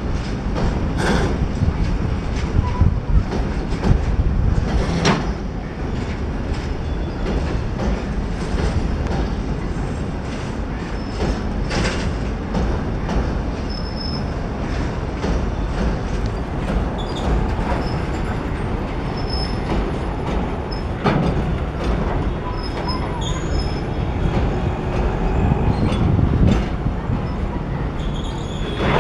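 A container freight train's wagons rolling past over a steel girder railway bridge: a steady rumble and rattle of wheels on the rails, with a sharp clank now and then. There are a few short, faint, high squeaks in the second half.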